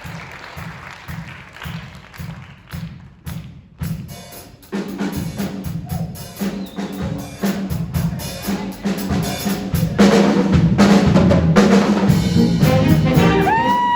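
School jazz band playing: a drum kit keeps the beat on its own for the first few seconds, then the full band with horns comes in about a third of the way through and grows louder about ten seconds in.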